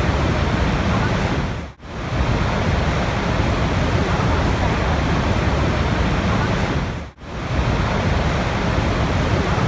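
Steady rushing water, a dense even hiss. Twice, about five seconds apart, it briefly fades out and straight back in.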